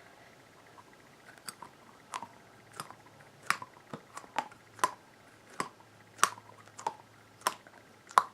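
A pig-shaped squishy stress toy being squeezed over and over, giving a short, crisp crackling click with each squeeze, about a dozen in all, getting louder toward the end.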